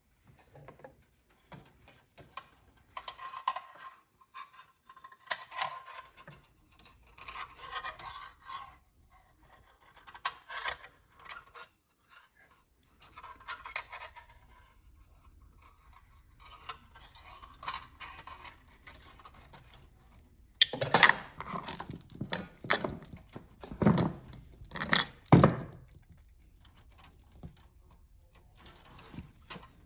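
Metal clinking and scraping as a roller drive chain and hand tools are handled, then a run of hard knocks about two-thirds of the way through.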